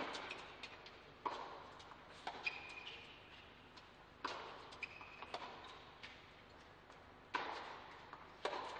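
Tennis rally on an indoor hard court: racquet strikes and ball bounces every second or so, each ringing on in the hall, with brief high shoe squeaks on the court between shots.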